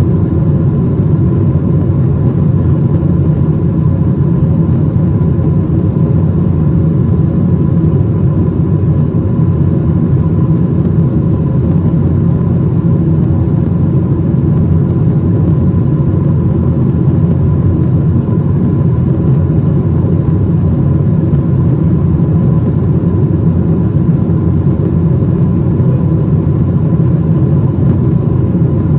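Steady cabin noise of a Boeing 777-200ER in flight: an even, deep rumble of jet engines and rushing air, with a faint steady whine above it.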